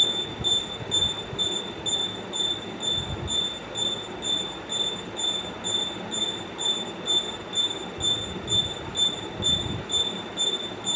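A high-pitched beeping tone, like a buzzer, pulsing on and off about twice a second over a steady background rumble.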